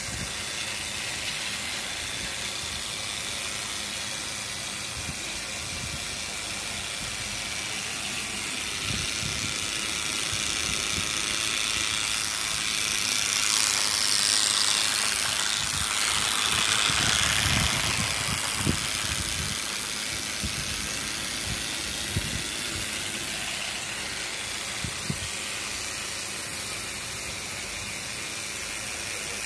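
Battery-powered TrackMaster Thomas toy engine running along plastic track: a steady small-motor whir with scattered clicks and rattles from the wheels and track. It is louder for a few seconds in the middle, when the engine is closest.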